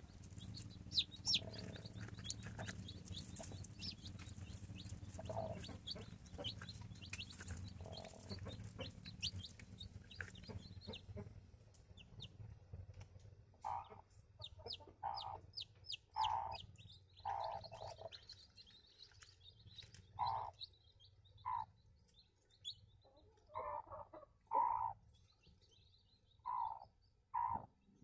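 Newly hatched chicks peeping in short, high, downward-sliding chirps, while the brooding hen clucks softly in short, low, separate clucks, about one a second, through the second half. A low background rumble under the first half fades out about midway.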